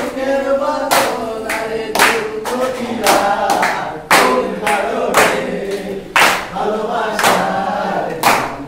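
A group of people singing a Bengali folk song together, with hands clapping in time about twice a second.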